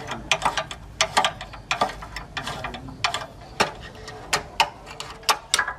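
Irregular series of sharp clicks and knocks, about three a second, some ringing briefly.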